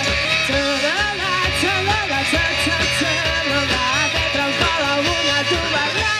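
Rock music: distorted electric guitars and a steady drum beat, with a voice singing over them.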